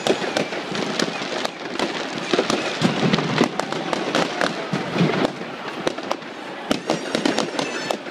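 Fireworks and firecrackers going off in quick succession: many sharp bangs and crackles overlapping one another, with a brief high whistle near the end.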